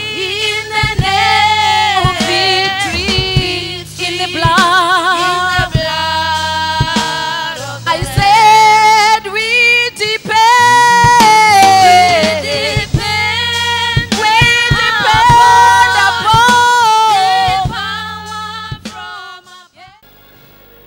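Gospel worship music: a woman singing a melody with strong vibrato over a sustained low accompaniment, fading out near the end.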